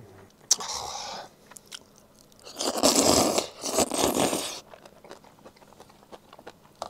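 Close-up mukbang eating sounds: a man slurping glass noodles and taking mouthfuls of rice with braised chicken. A short slurp comes about half a second in and two loud, longer ones come about three and four seconds in, followed by quiet chewing with small wet clicks.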